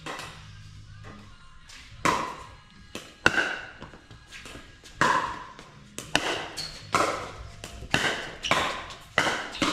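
Pickleball rally: paddles striking the plastic ball back and forth, a series of sharp pops with a short ring, starting about two seconds in and coming a little under once a second.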